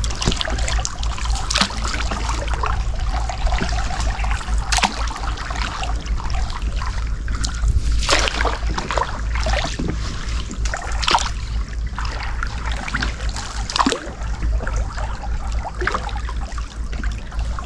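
Water trickling and splashing in irregular bursts, over a steady low rumble.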